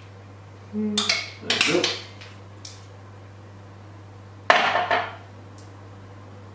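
A metal spoon clinking and scraping against a metal cake tray as batter is spooned into its holes, in two short clusters: one about a second in, another about four and a half seconds in.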